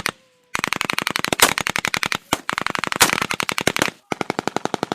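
Machine gun firing three long rapid bursts of roughly ten rounds a second, each shot a sharp crack, with brief pauses between bursts.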